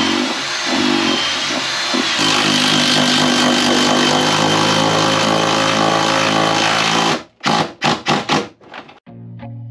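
Cordless drill running under load into the boat's wooden floor timbers, steadily for about seven seconds, then a few short bursts as the trigger is pulled on and off.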